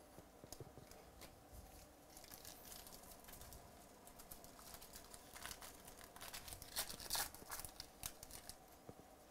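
Foil wrapper of a 2018 Diamond Kings baseball card pack being torn open and crinkled by hand: scattered faint crackles, then a denser cluster of sharp, louder tears about five to seven seconds in.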